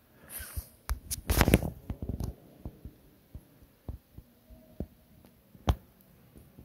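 Footsteps on a paved cave trail mixed with handling knocks on the phone: soft thumps and clicks about twice a second, with louder thumps about a second and a half in and a sharp knock near the end.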